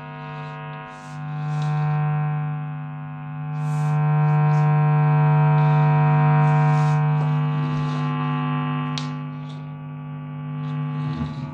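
Mains hum buzzing through the amp from an electric guitar's humbucking pickups (Ibanez QM1/QM2). It swells and fades as the guitar's position changes, a sign that the guitar is not shielded.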